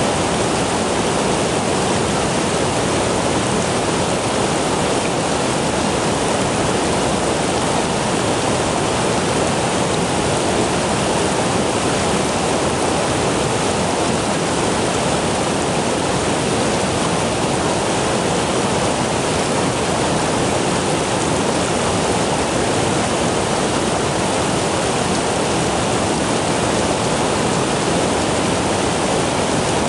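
A stream's fast-flowing water rushing steadily.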